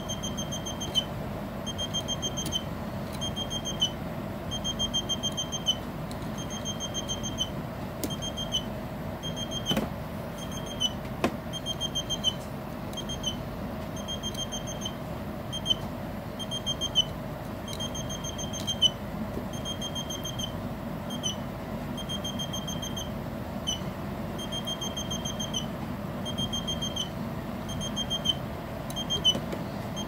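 Electronic bird-whistle kit circuit chirping in imitation of birdsong: short, high, rapidly pulsed trills repeating about once a second, some longer and some clipped short.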